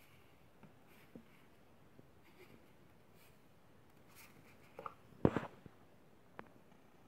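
Handling noise from a hand moving 4 cm crystal balls in their foam-lined box: a few faint ticks and rubs, then a cluster of sharp knocks about five seconds in, one much louder than the rest, and a last click a second later.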